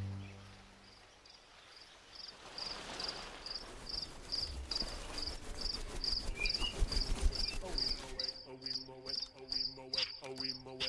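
A cricket chirping steadily, about two short high-pitched chirps a second. Low thumps come through around the middle, and a few held lower tones join near the end.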